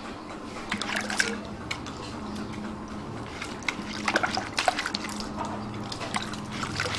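Trickling water with scattered sharp clicks and splashes.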